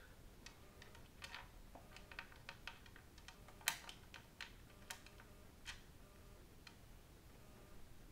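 Faint, irregular small clicks of a small Phillips screwdriver driving screws into a plastic Halo paintball hopper shell, one click louder about three and a half seconds in.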